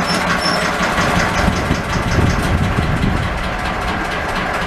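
Single-cylinder air-cooled diesel of a 1964 Deutz D15 tractor idling steadily, with a brief swell in the low rumble about two seconds in.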